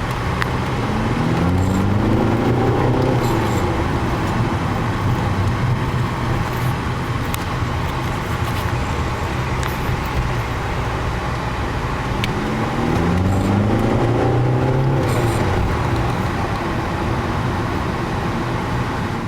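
Volkswagen 1.9 TDI four-cylinder turbodiesel car driving with steady road noise, accelerating twice: the engine pitch rises for about two seconds near the start and again about twelve seconds in. The engine is running with a newly fitted boost valve set to limit over-boost at about 18 psi.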